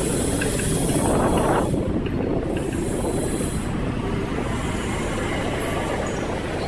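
Steady city traffic noise: a continuous low rumble with hiss, swelling and easing slightly.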